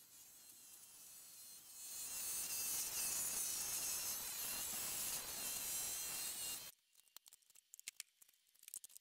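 JET scroll saw running and cutting through plywood: a steady high buzz that grows louder over the first two seconds, holds, then cuts off suddenly about two-thirds of the way through, leaving a few faint clicks.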